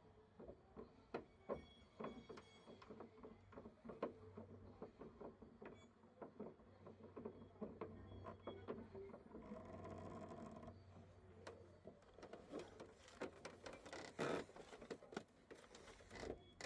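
Faint, scattered clicks and taps of small hand tools and metal parts being handled while the shift knob's set screws are tightened, over a faint steady low hum. About ten seconds in there is a brief, denser scraping stretch, and a louder cluster of clicks comes about four seconds later.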